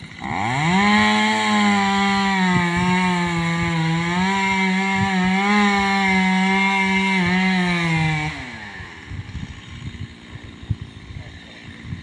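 Chainsaw engine revving up, held at high revs with slight wavering for about eight seconds, then winding down.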